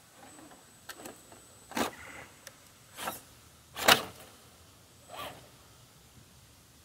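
A Vaterra Ascender RC rock crawler's electric motor and drivetrain whirring in five short bursts of throttle, the loudest about four seconds in.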